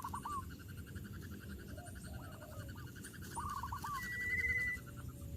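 Birds calling: several groups of three or four quick hooked notes, and a trilled whistle near the end that is the loudest sound, over a fast, even pulsing chirp.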